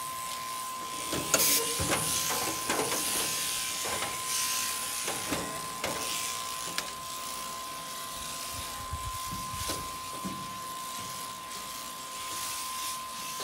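Powered sheep-shearing handpiece running steadily with a constant whine while it cuts through a ram's fleece, with irregular clicks and knocks over it, the sharpest about a second and a half in.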